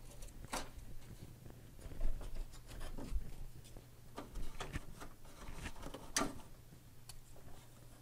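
Scissors snipping a cord and the cord being pulled free: a scatter of small sharp clicks and rustles, over a faint steady hum.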